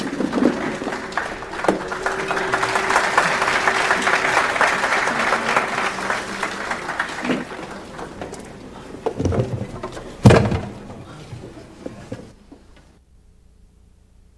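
Audience applauding, rising then dying away over several seconds, with two heavy thuds near the end.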